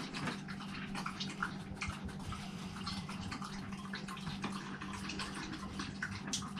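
Faint water sounds, drips and gentle lapping, made up of many small irregular clicks over a steady low hum.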